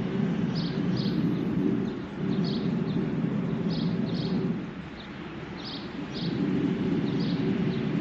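Leaf blower running while it blows packed dryer lint out through the dryer vent duct. Its steady low noise swells and drops, dipping for about a second and a half about five seconds in. Faint bird chirps come and go above it.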